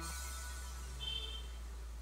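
Soft background music: a few held electronic notes fading away over a steady low drone, with a short high note about a second in.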